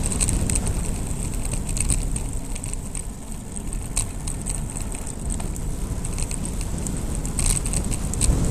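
Wind rush and tyre rumble picked up by an action camera on a bicycle descending fast on asphalt, with scattered light rattling clicks. The noise eases a little in the middle and builds again near the end.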